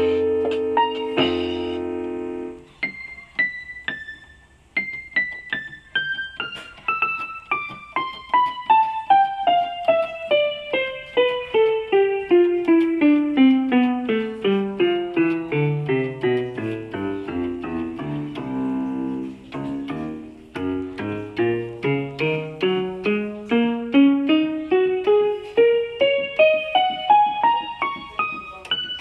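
Yamaha PSR-150 electronic keyboard playing in a piano-like voice: a few held chords, then single notes struck one after another down the keyboard from high to low and back up again, each key sounding in turn as the instrument is tested after repair.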